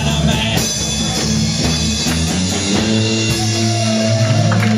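Live rock band playing: electric guitars and bass over a drum kit, with steady low bass notes and a note sliding upward near the end.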